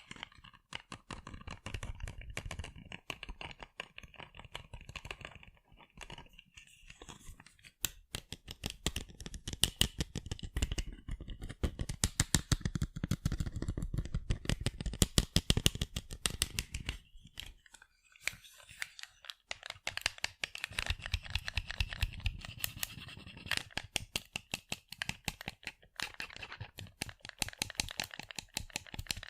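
Fingers tapping rapidly on sunglasses, a fast stream of light plastic clicks broken by a few short pauses.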